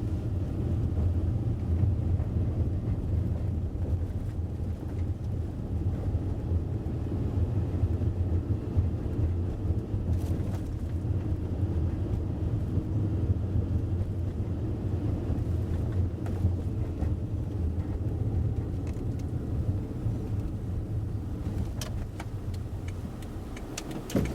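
Steady low rumble of road and engine noise from a car driving, heard inside the cabin, with a few light clicks near the end.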